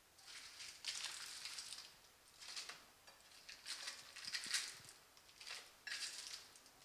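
Plastic-wrapped surimi sticks dropped a few at a time into a pot of water: about six short, faint bursts of splashing and wrapper crinkling.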